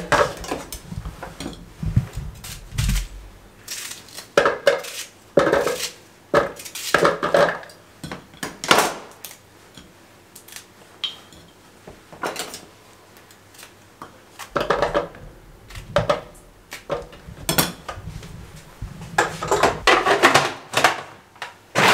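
Clatter and knocks of plastic food-processor parts being handled and fitted together: the chopper bowl, blade and lid set down and clicked into place, with pieces of onion and green chilli dropped into the bowl. The knocks come one by one at irregular intervals and grow busier near the end.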